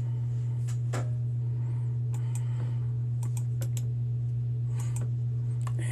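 Laptop keys and touchpad clicking: a dozen or so short clicks in uneven little clusters, over a steady low hum.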